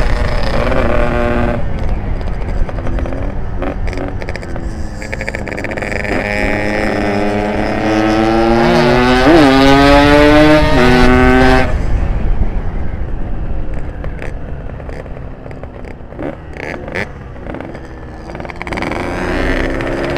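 Yamaha RX-King's ported 135 cc two-stroke single-cylinder engine accelerating hard: the pitch climbs, dips briefly twice at upshifts, then drops away suddenly as the throttle closes about twelve seconds in. It runs quieter for a while, then revs up again near the end.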